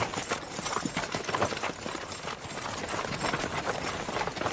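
A team of horses trotting, hooves clip-clopping on a dirt street, pulling a wooden stagecoach whose wheels rattle as it rolls.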